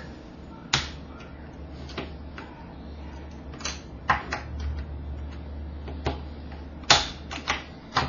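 Irregular sharp plastic clicks and clacks from a stiff DIY Type D Rubik's cube being twisted and pried at by hand, the cube so stiff it is very hard to turn. The loudest snap comes about seven seconds in, as a piece is worked out of the cube.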